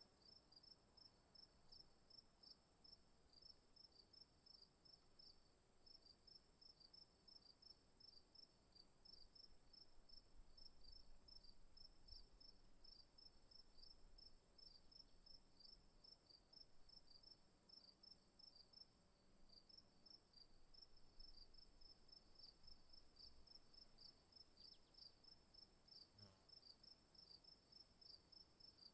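Faint cricket chorus: one high, unbroken trill under a cricket chirping in even pulses a few times a second.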